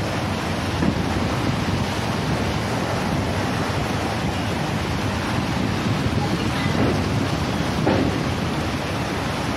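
Steady rushing wind buffeting the microphone from a moving train over the sea, mixed with the churn of surf below.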